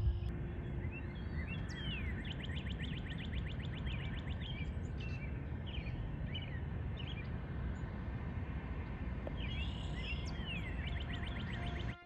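A small bird singing over a steady low outdoor rumble: twice a song of a few slurred notes running into a fast trill of about ten notes a second, with a few single calls in between.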